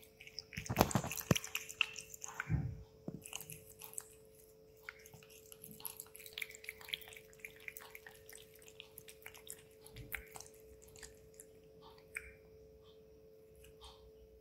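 Cat lapping water from a stainless steel bowl: a run of quick wet licking clicks, loudest in the first few seconds with a couple of heavier knocks, then softer. A faint steady hum runs underneath.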